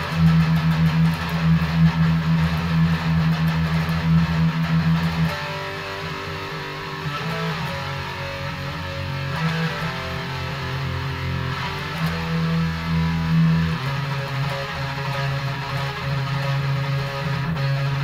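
Electric guitar with an EMG 81 active humbucker on a high-gain metal tone, playing a fast heavy riff. Loud low-string chugging for about the first five seconds, then a quieter run of higher notes, then low chugging again past the middle.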